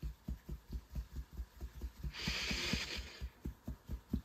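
Fingertips tapping on the collarbones in EFT tapping: soft, even thumps at about four or five a second. A single audible breath about two seconds in, lasting about a second.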